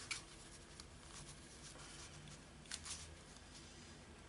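Faint rustling of paper sheets being handled and slid against each other, with two short louder rustles, one just after the start and one nearly three seconds in.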